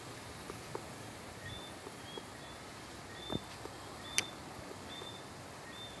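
Whistling tree frogs calling at night: scattered short, high chirps from several directions over a steady background hiss, with a sharp click a little after four seconds.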